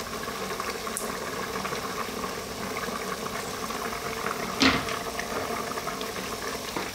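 A large pot of beef and tomato stew bubbling steadily at a hard boil on maximum heat. One sharp knock comes about two-thirds of the way through.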